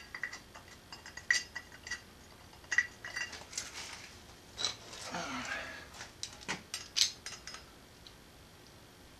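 Scattered metallic clinks and taps of a wrench, sockets and steel bolts being handled while bolts are run into an aluminium engine bracket. A softer rustling scrape comes about five seconds in.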